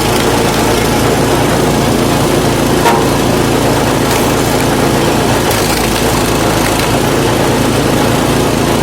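Lifan 6.5 hp single-cylinder four-stroke petrol engine running steadily on a homemade screw-cone log splitter, with a single short knock about three seconds in.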